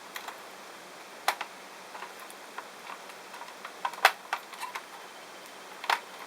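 Irregular small clicks and taps from hands and tools handling the parts of a PlayStation 3 console during disassembly, with a few louder ones about a second in, around four seconds in and near the end, over a steady faint hiss.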